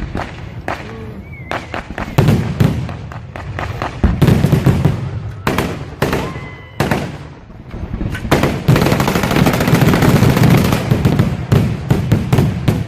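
Staged anti-aircraft barrage of a re-created air raid: a rapid string of sharp bangs and pops. It thickens into a dense, fast crackle for about two seconds in the second half.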